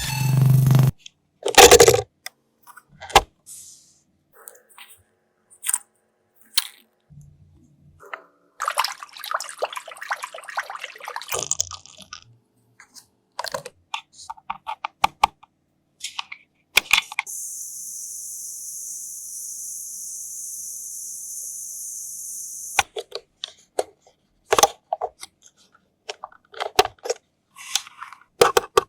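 Hands handling toy packaging and plastic parts: scattered sharp clicks and taps with bursts of crinkly rustling. A steady high hiss runs for about five seconds in the middle.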